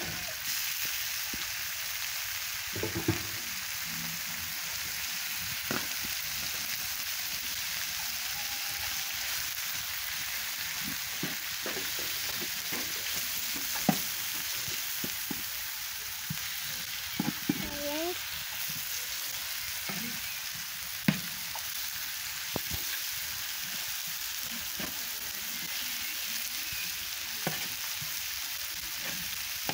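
Thin-sliced beef and green vegetable strips sizzling steadily on a hot steel griddle, with scattered sharp clicks of metal tongs against the griddle as the meat is turned.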